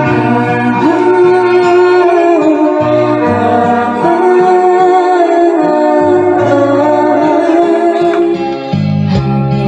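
A woman singing into a handheld microphone over instrumental accompaniment, holding long notes with a wavering pitch.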